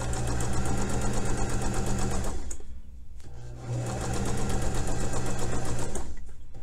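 Electric sewing machine stitching a narrow hem: a steady motor hum with a rapid, even stitch clatter, running in two bursts with a pause of about a second between them, and stopping again near the end.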